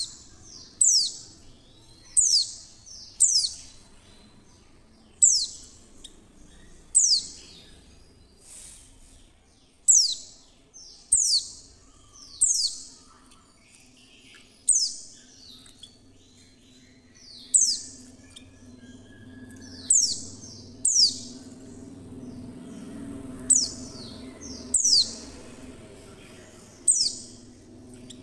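White-eye (pleci) calls, billed as the female's call used as a lure to get caged white-eyes singing. They are short, high chirps sweeping downward, often in pairs, repeated about every one to two seconds over a faint low hum.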